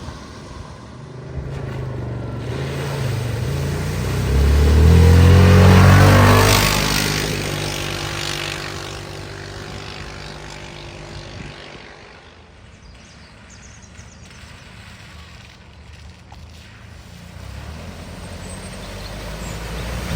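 A car driving through a flooded ford: its engine grows louder and rises in pitch, passes close about five to six seconds in with a rush of water spray, then fades as it drives away.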